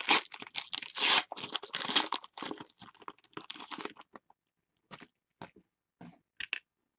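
Foil trading-card pack being torn open by hand, the wrapper crinkling and crackling for about four seconds, then a few short crinkles and taps near the end.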